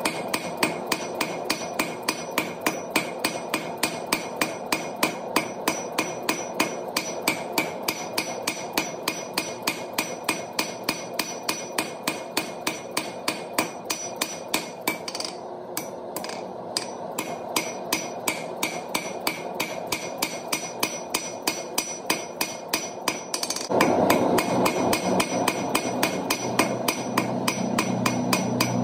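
Hand hammer striking a red-hot 5/8-inch round steel bar on an anvil in a steady rhythm of about three blows a second, with a brief pause about halfway through. A steady rushing background with a low hum gets louder near the end.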